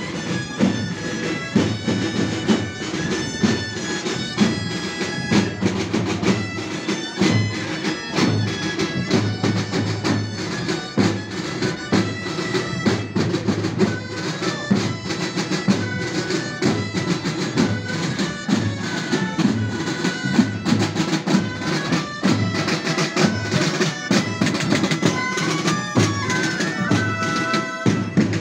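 Street band of reed pipes and drums playing a processional tune: a shrill, sustained melody over a steady low drone, with a regular drum beat under it.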